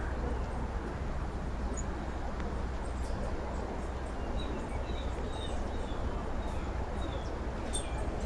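Small songbird giving a string of short, high chirps, about two a second through the middle, over a steady low background rumble, with a few faint clicks.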